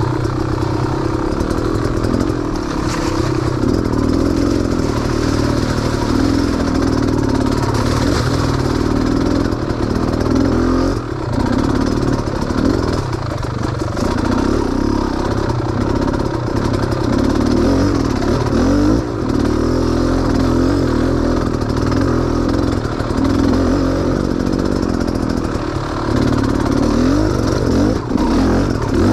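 Off-road vehicle's engine running at low revs on a rough trail, the throttle opening and closing so the pitch rises and falls unevenly, with clattering from the machine over roots and ruts.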